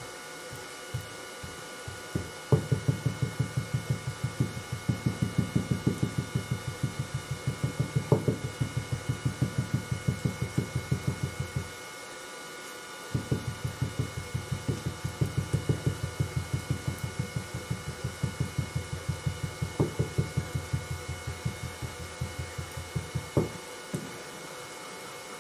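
Green molding sand being rammed into a wooden casting flask: rapid, even thuds at about six or seven blows a second, in two long runs with a short break between.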